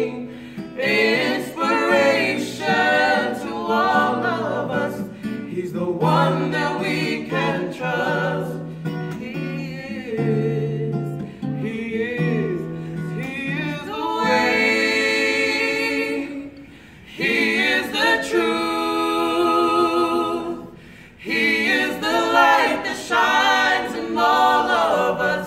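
A vocal trio of two women and a man sings a gospel song in close harmony, with acoustic guitar accompaniment. The guitar drops out about halfway through, and the voices carry on unaccompanied.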